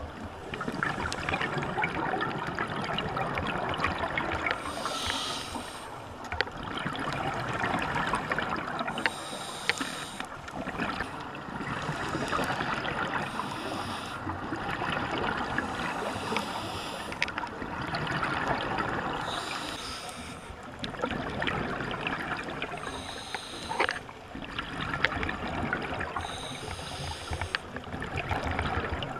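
Scuba diver breathing through a regulator underwater: a slow repeating cycle of hissing breaths and gurgling exhaled bubbles, about one breath every three to four seconds.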